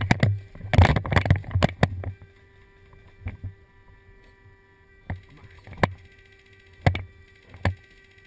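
Clothing and gear rustling and scraping in dry pine needles as a player drops to the ground, for about the first two seconds. Then about five sharp single cracks of airsoft rifle shots, spaced roughly a second apart.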